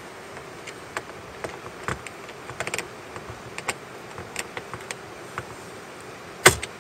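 Phillips screwdriver working a kayak seat bolt, making scattered light clicks, then one sharp knock near the end as the screwdriver handle is struck with the palm to break the seat plate free.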